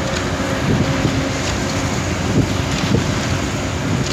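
Wind buffeting the microphone over the steady wash of a choppy sea.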